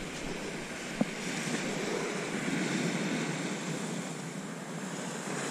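Ocean surf washing onto a sandy beach, with wind on the microphone and one sharp click about a second in.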